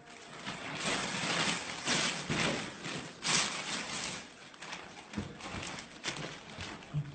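Plastic bags rustling and crinkling as they are handled, in uneven bursts with a few short knocks; the loudest rustle comes a little past the middle.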